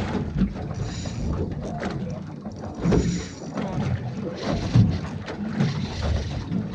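A small boat at sea: water and wind noise around the hull, with hiss coming in surges and a few short knocks.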